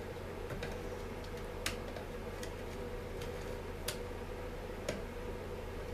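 A few sharp metallic clicks and taps of a hand tool and small parts being handled on a chainsaw, spaced a second or more apart, over a steady low hum.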